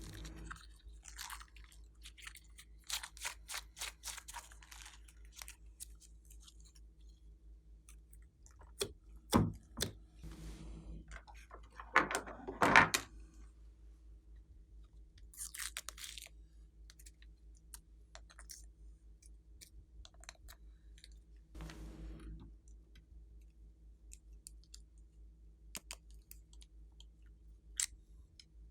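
Glossy slime being worked by hand: irregular sticky clicks, crackles and pops, with a louder run of them about nine to thirteen seconds in. A faint steady hum lies underneath.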